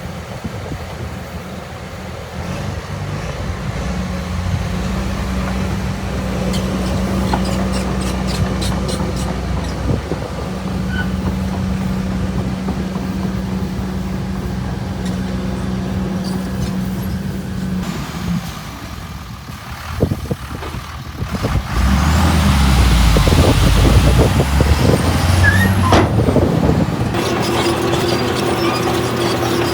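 Heavy diesel earthmoving machinery running: a steady engine drone for most of the first half, easing off briefly with a few knocks, then running louder from about 22 s in with faint high squeals.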